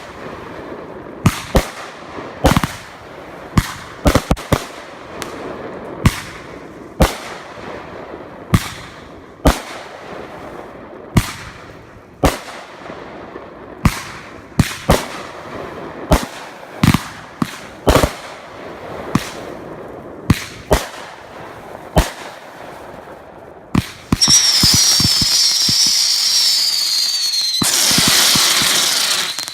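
Fireworks going off: a string of sharp bangs, one or two a second, then about 24 seconds in a loud hissing burst with a falling whistle, followed by dense crackling near the end.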